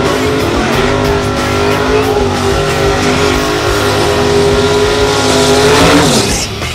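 Camaro drag car doing a burnout: the engine is held at high revs in a steady, loud note while the rear tyres spin and squeal in smoke, then the revs drop away about six seconds in.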